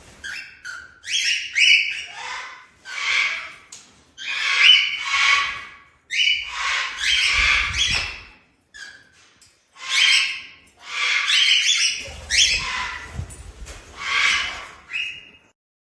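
A white cockatoo squawking: a string of about a dozen loud, harsh screeches, each under a second long, with short pauses between them. They stop just before the end.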